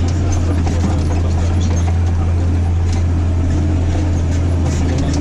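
Massey Ferguson 8210 tractor engine running steadily under load while pulling a disc harrow, heard from inside the cab as a loud low hum with light scattered clicks and rattles.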